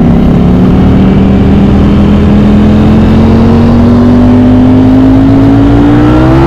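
Ducati Streetfighter V4 SP's V4 engine accelerating under load in one gear, its note climbing slowly and steadily, then rising faster near the end.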